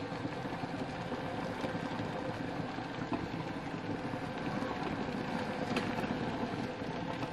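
Handheld garment steamer running, a steady buzzing hum as it steams a hanging garment.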